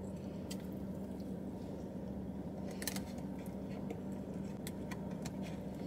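A steady low hum inside a car's cabin, with soft chewing and a few light clicks and rustles as a paper takeout box is handled.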